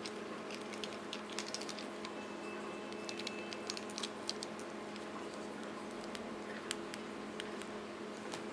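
Light irregular clicks and scuffs of a Siamese cat's claws and paws on a woven rug, most of them in the first half, over a steady low electrical hum.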